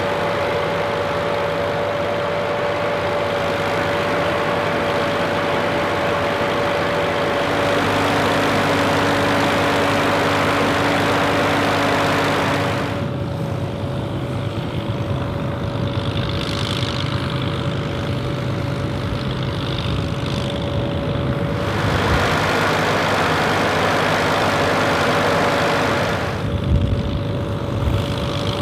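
Steyr 185a tractor and Claas Super Automatic-S pull-type combine running together while threshing wheat: a steady engine drone under the clatter of the combine, with a constant high whine. The sound changes abruptly a few times as the shots change.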